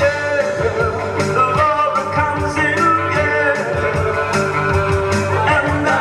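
Rock band playing a new-wave song, with drums, guitar and a singing voice.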